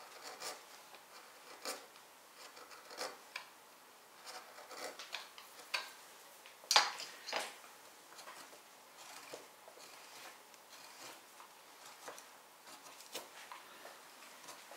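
Hand tools working a small wooden carving: irregular short scrapes and clicks of a blade or abrasive on wood, with two louder strokes about seven seconds in.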